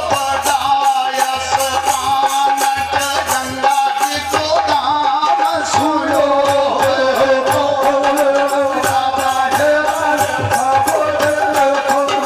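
Live Rajasthani folk music: a dholak drum and clacking khartal wooden clappers keep a steady fast rhythm under a held, wavering melody line.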